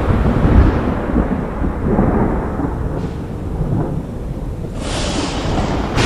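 Rolling thunder over a stormy sea, heaviest in the first second or so and then easing off, under a steady wash of storm noise. A hissing surge rises near the end.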